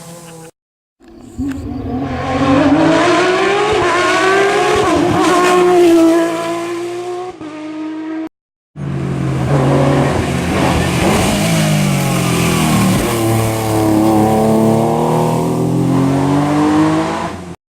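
Porsche 911 (997) rally car's flat-six engine revving hard, its pitch climbing through the gears and dropping on each shift and lift. It comes in two stretches, with a brief dropout near the start and another about eight seconds in.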